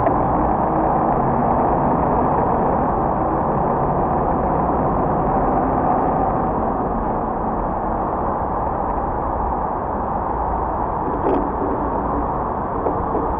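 City street traffic at an intersection: cars driving past and idling, a steady unbroken noise with no single event standing out.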